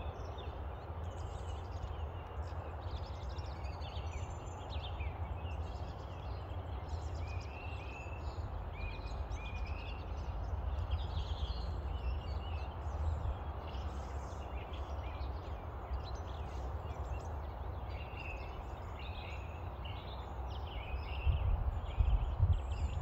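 Birds chirping over a steady low rumble of wind on the microphone, the rumble growing louder for a couple of seconds near the end.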